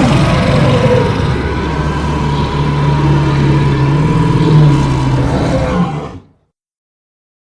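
Film creature sound effect: one long, low, growling roar held at a fairly steady pitch, fading out about six seconds in.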